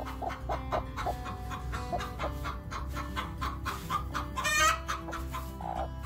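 Chickens clucking in short repeated notes, with one louder, sharper squawk about two-thirds of the way through.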